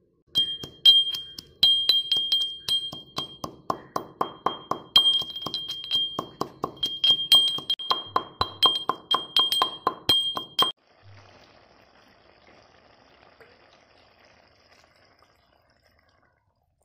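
Metal pestle pounding whole spices in a stone mortar: a quick run of sharp ringing strikes, about three a second, that stops abruptly. A faint steady hiss follows, the curry simmering.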